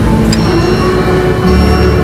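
Background music with held notes over a heavy low bass.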